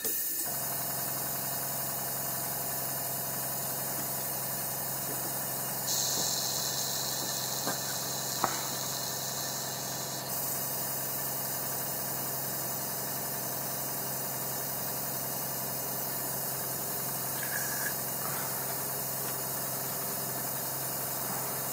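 Airbrush compressor running with a steady low hum while airbrush cleaner is sprayed through the airbrush into a cleaning jar. The high hiss of the spray grows louder for about four seconds, starting some six seconds in.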